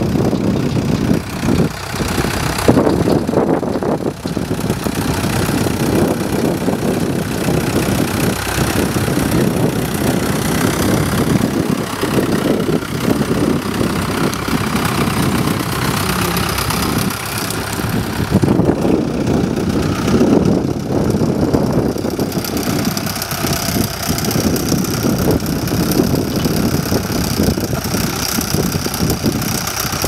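Ford Major tractor engine running steadily and evenly under load while pulling a plough.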